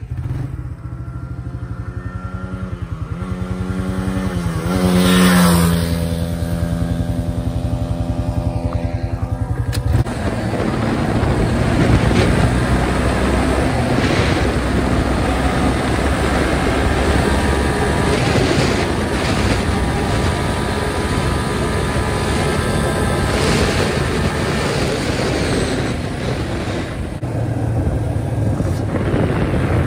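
Dirt bike engine revving and rising in pitch, loudest about five seconds in. From about ten seconds in, the sound changes abruptly to riding heard from on the bike: the engine running under heavy wind noise on the microphone.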